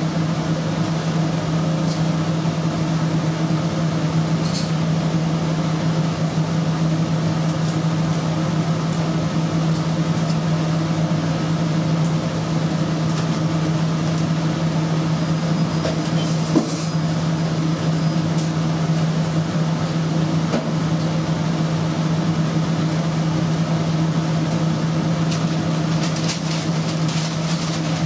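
Steady low hum of commercial kitchen machinery, even throughout, with a few faint clicks of a knife touching a cutting board as tuna is sliced.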